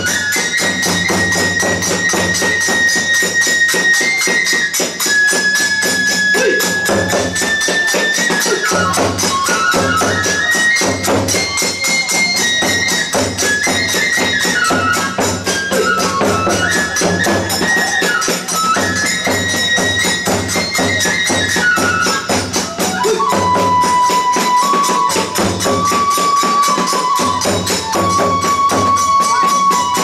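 Hiroshima kagura accompaniment: a Japanese bamboo flute playing a melody of long held notes that steps up and down and settles lower near the end, over a steady beat of large and small taiko drums and continuous clashing of small hand cymbals.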